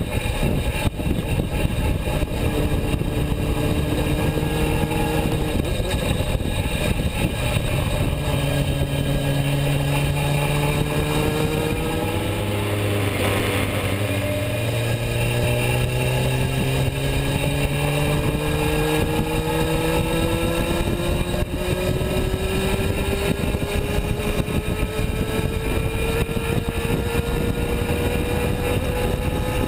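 Honda CBR600 F3's inline-four engine running at road speed under heavy wind rush. Its pitch shifts around the middle, then climbs slowly and steadily through the second half as the bike accelerates.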